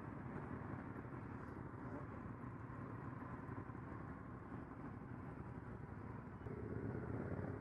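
Several motorcycle engines running together in slow, close-packed traffic, a steady mixed rumble. About six and a half seconds in it gets louder as one bike right alongside draws closer.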